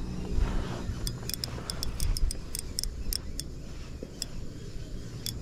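Wind rumbling on the microphone, with a scatter of light, sharp clicks at an uneven pace.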